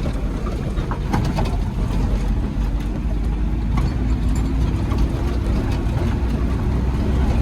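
Quad bike (ATV) engine running steadily, with a dense low rumble under it.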